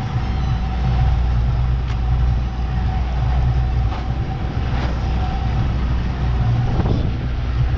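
90 hp Yamaha outboard running steadily at trolling speed, a continuous low drone with a steady whine over it, mixed with wind and water noise.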